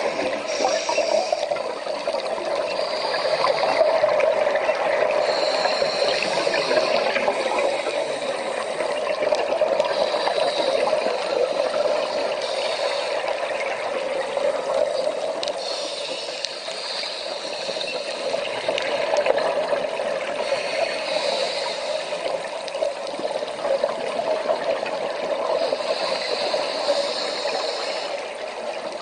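Underwater ambience picked up by a submerged camera: a steady rushing, crackling water noise, with short hissing swells every few seconds.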